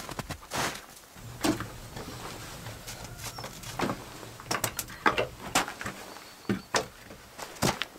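Flat stone slabs clacking against one another as they are set down on a pile: a scatter of irregular sharp knocks, a few close together about five seconds in.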